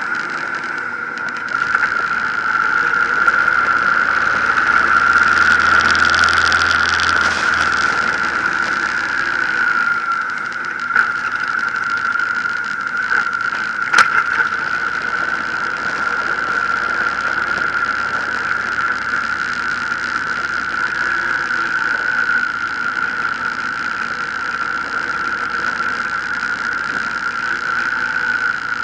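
Honda VTX 1800 cruiser's V-twin engine running on a road ride, heard from a camera mounted on the bike, under a steady high-pitched whine. The sound grows louder and deeper for a few seconds, from about four to nine seconds in, and there is a single sharp click about halfway through.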